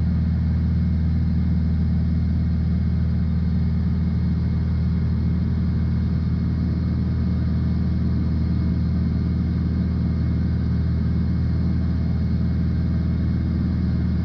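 Piper PA-46 Malibu's piston engine and propeller droning steadily in the cabin at cruise power.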